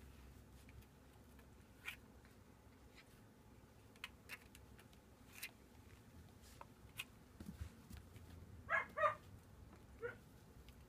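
Rough collie puppies play-fighting: scattered light clicks and scuffles of paws and claws on the plastic grid floor, then two short high yips close together about nine seconds in and a fainter one a second later.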